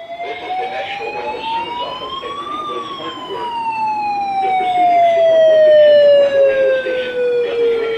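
Siren winding up to a peak about two and a half seconds in, then slowly winding down in pitch.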